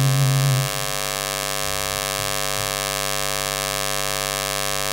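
A steady electrical hum or buzz with many overtones on the recording, typical of mains hum, running loudly and unchanged. It is the end of a sung note that fades out about half a second in.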